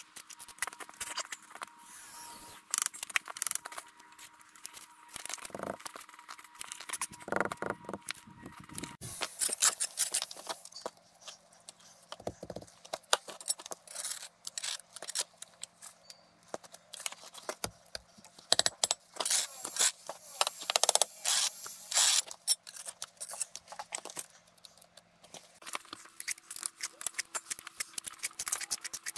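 Hand masonry work on natural stone: irregular scraping and sharp clicks and taps of steel tools against stone and mortar, in uneven clusters.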